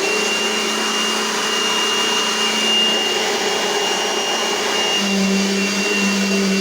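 Dirt Devil Power Light vacuum cleaner running at full speed, very loud: a steady high motor whine over rushing airflow, with a lower hum that grows stronger about five seconds in.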